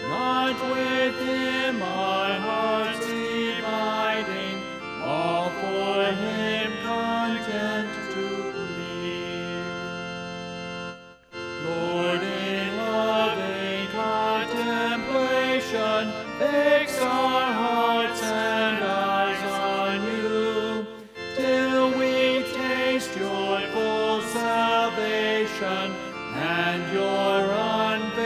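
Organ playing a hymn with voices singing along. A long held chord ends in a brief break about eleven seconds in, then the next verse begins.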